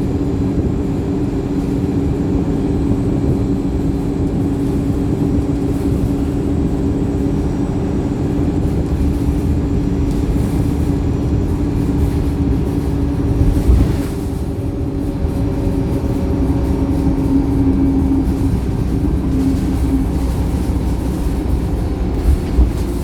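Wright StreetLite single-decker bus under way, heard from inside: a steady engine drone with a low rumble beneath, from an engine the uploader calls tired. A single thump about fourteen seconds in and two short knocks near the end stand out from the drone.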